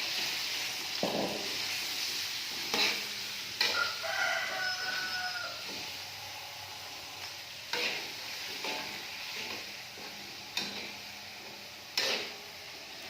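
Spice paste sizzling as it fries in oil in a pan, with a spatula stirring and knocking against the pan now and then; the sizzle slowly dies down. A rooster crows in the background about four seconds in.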